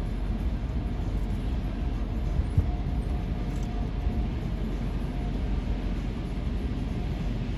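Steady low rumble of car-wash tunnel machinery and an idling car engine, heard from inside a car, with a faint steady whine and a single thump about two and a half seconds in.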